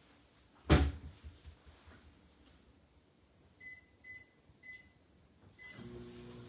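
One loud knock about a second in, like debris being handled. It is followed by four short high beeps, and near the end a steady low hum with a few pitched tones starts.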